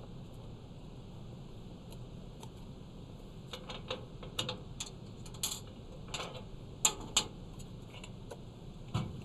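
Scattered clicks and light clatter of equipment and cables being handled on a wheeled instrument cart, over a steady outdoor hiss, with a dull thump near the end.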